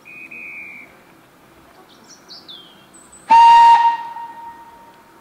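LSWR S15 steam locomotive's whistle: one short, loud blast about three seconds in that tails off over about a second. A high, steady single-note whistle sounds briefly at the start, and birds chirp before the blast.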